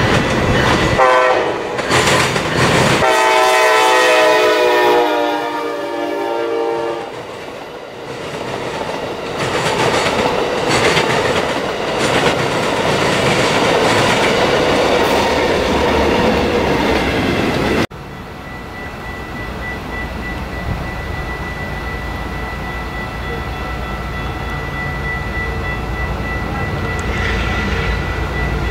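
Passenger train horn, one short blast and then a longer one, as the train comes up the line. The train then passes close by: rumbling, with wheels clacking over the rail joints. After a sudden cut, a distant train rumbles as it approaches, growing louder, under a steady high ringing tone.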